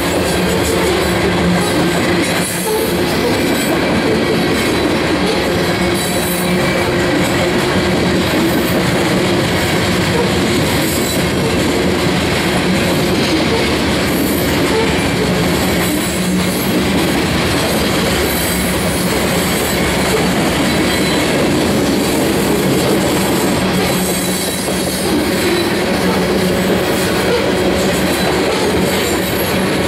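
Covered hopper cars of a freight grain train rolling past close by: a steady rumble and clatter of steel wheels on the rails, unbroken throughout.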